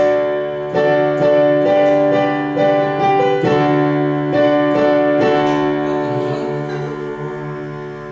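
Piano playing a series of chords, about two a second, with the last chord left to ring and slowly fade.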